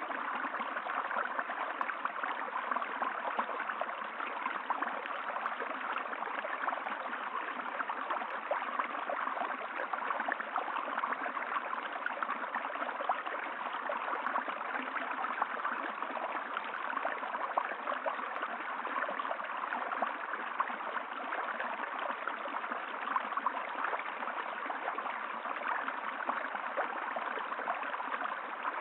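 Running water of a stream, flowing steadily.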